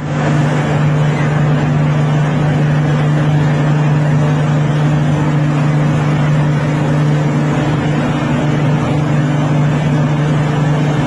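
Engine running steadily and loudly, a constant low hum over a dense rattling noise, with no change in speed. It cuts in abruptly at the start.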